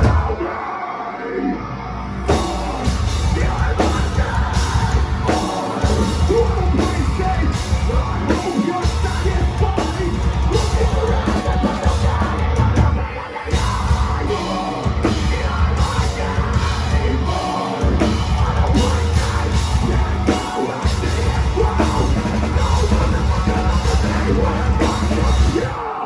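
Metalcore band playing live at full volume: heavy guitars, bass and drum kit under a screamed vocal. The band stops short for a moment several times, every few seconds, before crashing back in.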